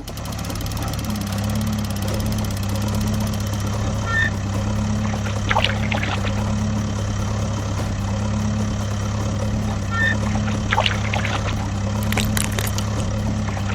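A vehicle engine idling steadily, a low hum that pulses gently about once a second, with a few short, high chirps over it.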